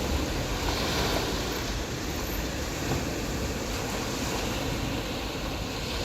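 Ocean surf washing onto a beach: a steady rushing noise with a low rumble, swelling slightly about a second in.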